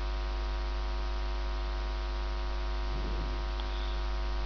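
Steady electrical mains hum in the recording: a low buzz with a stack of even overtones, holding at one level throughout.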